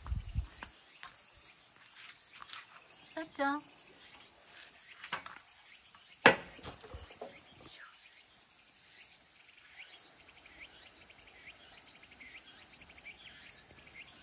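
Steady high-pitched chorus of insects chirring outdoors, with a faster ticking trill joining in during the second half. Scattered light clicks, a sharp knock about six seconds in, and one short pitched vocal call about three seconds in.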